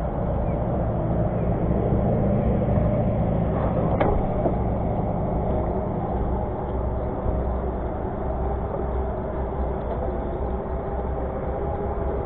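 Boat outboard motor idling steadily, with a single sharp knock about four seconds in.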